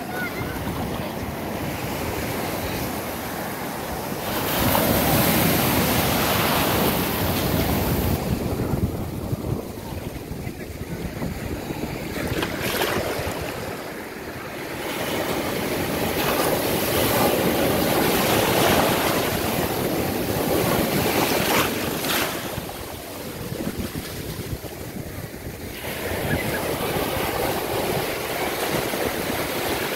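Small ocean surf breaking and washing up the sand at the water's edge, a steady rush of water that swells and eases as waves come in, with two louder surges about five and sixteen seconds in.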